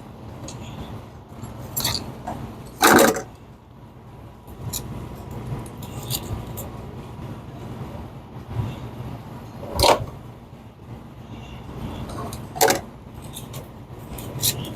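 Screwdriver clicking and knocking against a stuck Phillips-head screw and its metal probe bracket, which has seized in place from sitting in the hot oven. Three sharp knocks stand out, about three seconds in, near ten seconds and again a few seconds later, over a steady low hum.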